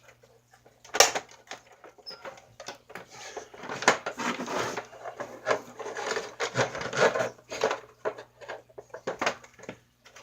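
Hard plastic parts of a toy snowmobile being handled and fitted together by hand: a sharp click about a second in, then several seconds of clattering and scraping with scattered clicks.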